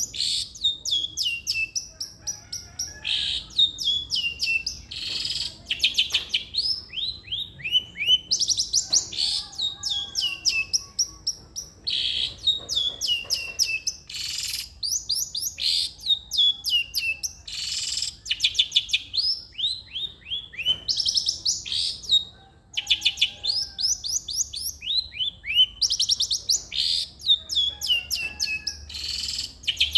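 Long-tailed shrike (cendet) in full song: rapid runs of sharp, falling high notes, broken by short harsh rasping notes, the phrase coming again every few seconds.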